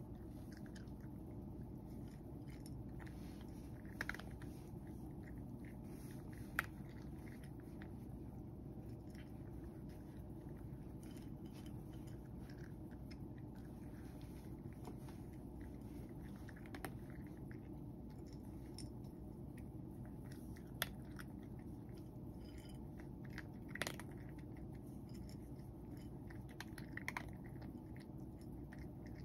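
A cat eating from a dish: faint chewing with scattered small clicks and a few sharper ones, over a steady low hum.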